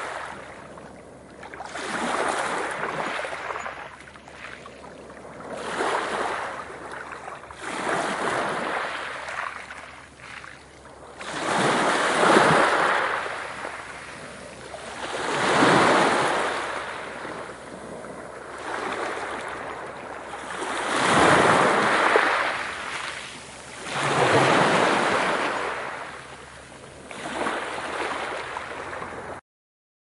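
Sea waves breaking, in repeated surges two to four seconds apart, each swelling and then fading away. The sound cuts out for about a second near the end.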